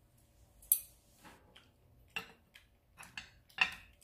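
Metal chopsticks clicking and scraping against a grill pan and each other while picking up pieces of grilled pork: about half a dozen short, irregular taps, the sharpest a little under a second in and near the end.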